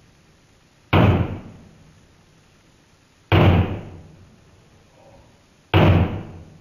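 A hatchet striking the casing of a small portable CRT television three times, about two and a half seconds apart, each blow a loud, sudden thud that dies away over about a second.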